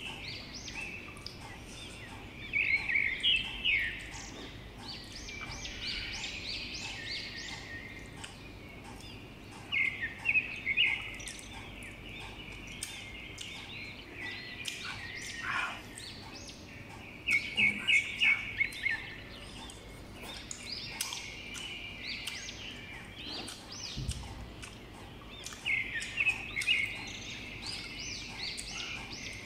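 A bird chirping in quick runs of short notes, several times, over faint crunching of crisp green mango being chewed.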